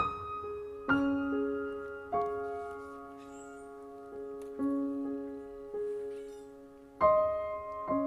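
Slow, meditative solo piano music: single notes and chords struck every one to two seconds and left to ring out as they fade, the loudest chord about seven seconds in.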